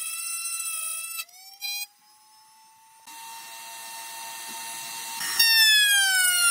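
Table-mounted power cutter (saw or router) whining at high speed as it cuts finger-joint slots into the end of a pine board held in a box-joint jig. The whine drops away about a second in, returns faint a few seconds later, then comes back loud near the end, its pitch sinking as the cutter takes the load.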